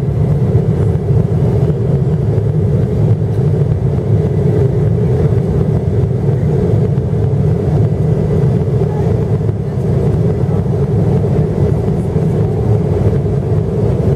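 Steady jet airliner cabin noise in flight, heard from inside the cabin: a constant low rumble of engines and rushing air with a hum above it.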